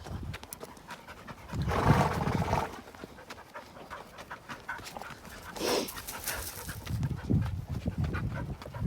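A cow dog panting in several breathy spells, loudest about two seconds in, with small clicks and rattles throughout.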